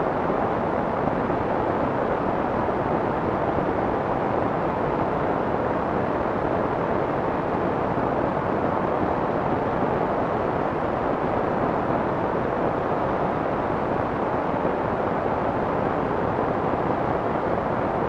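Steady soft white noise with little treble, even and unchanging throughout.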